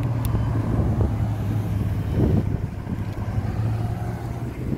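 Ferrari sports car engines running at low revs as the cars roll slowly past, a steady low drone with a brief swell about two seconds in. Some wind noise on the microphone.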